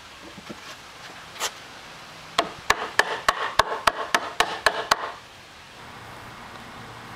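Rubber mallet knocking a notched pressure-treated 4x4 crosspiece down into the matching notch in the post to seat the lap joint: one knock, then a quick run of about ten strikes at roughly four a second.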